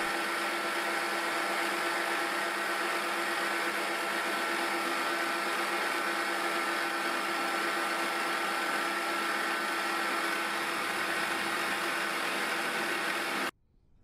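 Milling machine running steadily, its cutter milling a slot in 3 mm aluminium plate: an even machine hum with a high whine. It cuts off suddenly near the end.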